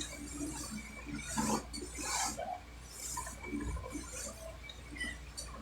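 A person's low grunts and hissing breaths, several in a row about a second apart, while being worked on in a bonesetting back treatment.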